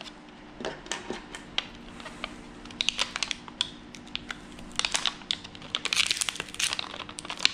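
Plastic blister pack of coin-cell batteries being picked and pried open by fingers: irregular crinkling and sharp plastic clicks and crackles that grow busier near the end.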